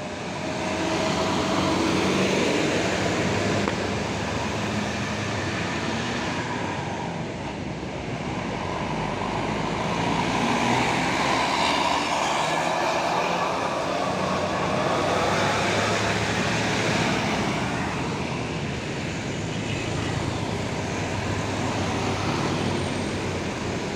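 Large diesel tour buses climbing past one after another, engines running and tyres on the road, the noise swelling and fading several times as each goes by.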